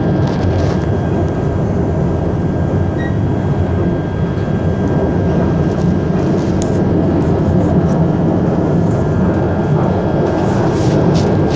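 Steady rumble of a commuter train running, heard from inside the carriage, with a faint steady high whine over it. A few sharp light clicks or rattles come near the start, about halfway through and near the end.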